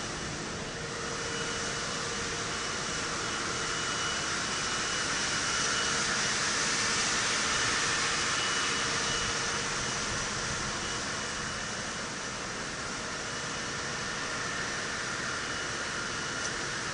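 Steady machinery noise of a copper tube production line: an even hiss with a faint steady whine and hum, swelling a little in the middle and easing off again.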